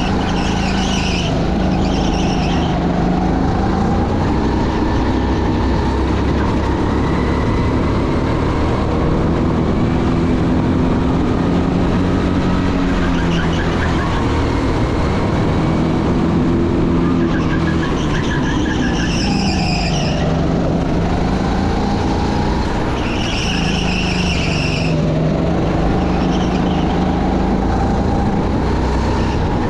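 A car engine running continuously at speed, its pitch rising and falling with the revs. Tyres squeal in short spells near the start, about two-thirds of the way through, and again soon after.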